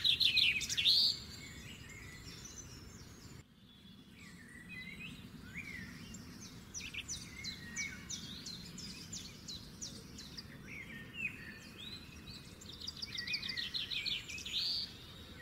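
Songbirds singing and chirping: rapid repeated trills and short rising chirps over a faint steady hiss, loudest in the first second and again near the end. The sound drops out briefly about three and a half seconds in.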